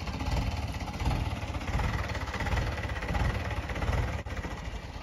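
Mahindra tractor's diesel engine running steadily at low revs, a continuous low throb.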